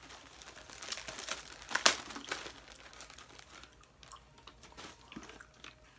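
Crinkling and rustling of small items being handled, with a sharp click about two seconds in, then only faint rustles.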